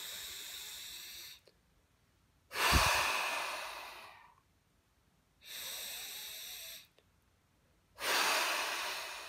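A man's slow, deliberate breathing: twice, a steady inhale through the nose followed by a louder full exhale that fades away.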